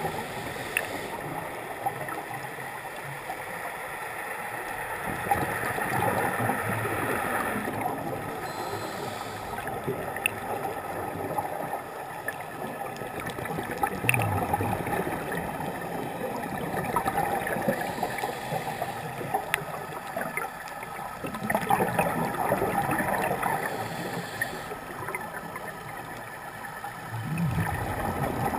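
Scuba divers' regulator breathing underwater, heard muffled through a GoPro's dome housing: a rushing, bubbling exhalation that swells and fades every few seconds over a steady water hiss.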